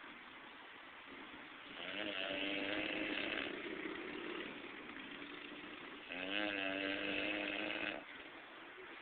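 Loud snoring from a sleeping person: two long buzzing snores about four and a half seconds apart, each lasting about two seconds, with quieter breathing between.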